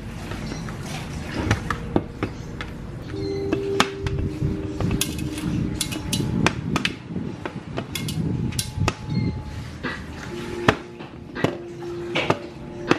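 Raw lamb chops being laid out by hand on a metal tray: irregular clicks and knocks, with handling noise.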